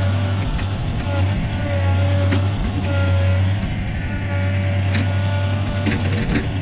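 John Deere 3025E compact tractor's three-cylinder diesel engine running steadily under work, its note dipping briefly a few times. A few sharp cracks and knocks come through as the loader works through brush and small trees, most about 2 s in and again near the end.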